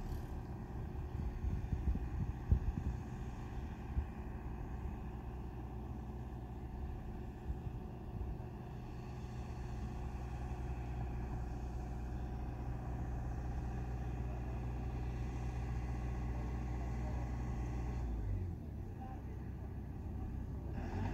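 Chairlift running: a steady low mechanical hum from the haul rope and lift machinery, with a few clunks about two to four seconds in. The hum dips briefly near the end, then comes back.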